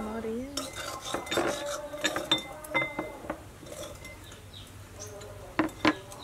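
Metal spoons clinking and scraping against small glass bowls and a ceramic bowl as sauce is spooned out, a string of short clinks, some with a brief ring, with two louder clinks close together near the end.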